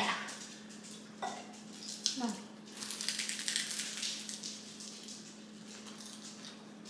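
Kitchen utensil and dish sounds while a salad is being made: a few light clicks, then a stretch of rapid crisp rustling and scraping that fades out, over a steady low hum.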